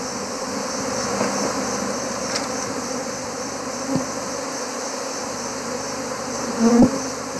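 A swarm of alarmed wild honeybees buzzing steadily around their hive as it is raided with a flaming torch. A soft knock comes about four seconds in and a louder double knock near the end.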